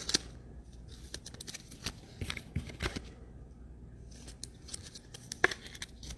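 Trading cards being handled on a table: scattered light clicks, taps and rustles of cards and their plastic sleeves.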